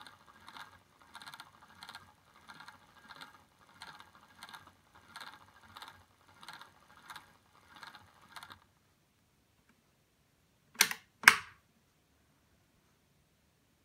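LEGO steam locomotive model's plastic Technic drive and valve gear running on a test bench, clattering in an even rhythm of about three bursts every two seconds, which stops about eight and a half seconds in. About two seconds later come two sharp clicks in quick succession.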